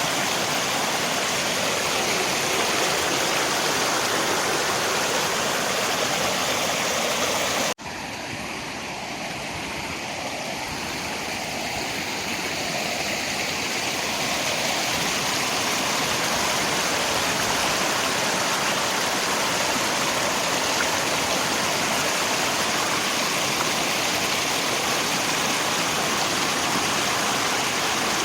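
Steady rushing of river water mixed with rain. About eight seconds in it cuts out for an instant, then comes back quieter and swells up to its full level over several seconds.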